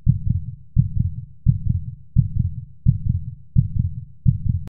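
Heartbeat sound effect: deep lub-dub thumps repeating steadily about every 0.7 seconds, seven beats in all, cut off abruptly with a click near the end.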